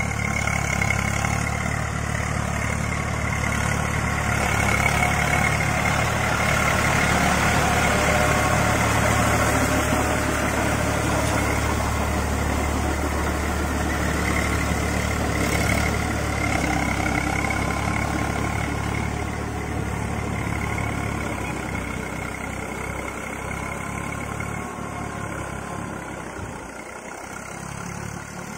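Eicher 380 40 HP diesel tractor running steadily under load as it drives a rotavator through a flooded, muddy paddy field. It is loudest as it passes close, then fades gradually as it moves away across the field in the second half.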